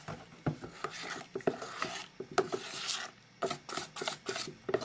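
Metal spoon stirring thin pancake batter in a stainless steel pot, scraping and clicking against the pot's sides and bottom in quick, irregular strokes.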